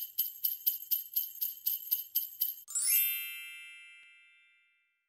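Sleigh bells shaken in a steady rhythm, about four shakes a second. About two and a half seconds in they give way to a quick upward chime sweep, whose notes ring out and fade away: a short holiday intro sting.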